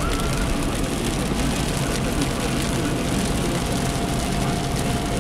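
Inside a Fiat Panda 900ie driving in heavy rain: steady rain noise on the roof and windscreen and tyre hiss on the wet road over a low engine rumble, with a faint steady whine.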